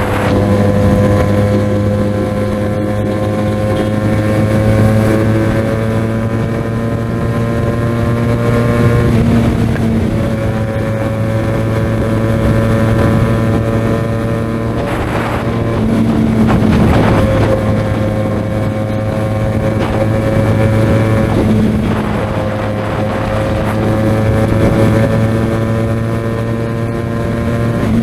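QJMotor SRK 400 motorcycle engine and exhaust under way at speed, the engine note slowly climbing and then falling back about three times, with wind rushing past the microphone.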